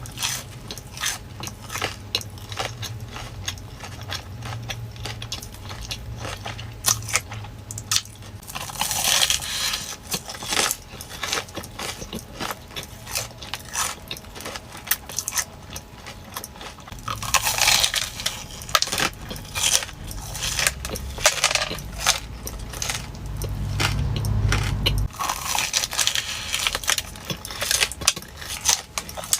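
A person biting and chewing a crispy Korean corn dog, making many quick, irregular crunches.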